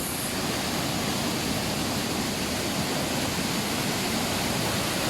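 Steady rush of a waterfall in full flow, its river swollen by heavy rains.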